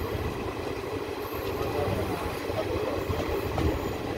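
Indian Railways passenger train running at speed, heard from on board: a steady rumble of the coaches and their wheels on the rails.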